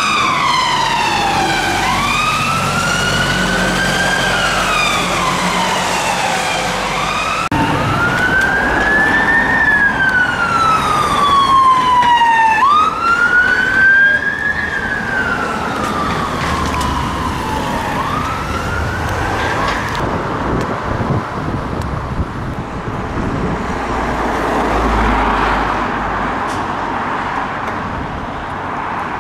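Emergency vehicle sirens on a slow wail, rising and falling every few seconds: first an ambulance Vauxhall Zafira's, then, after a cut about seven seconds in, a police Vauxhall Vivaro van's. The wail stops about twenty seconds in, leaving only road traffic noise.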